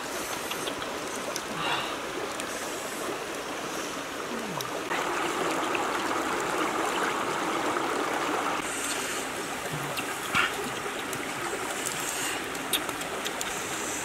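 Running water of a shallow rocky stream, a steady rush that swells louder for a few seconds in the middle, with a few sharp clicks over it.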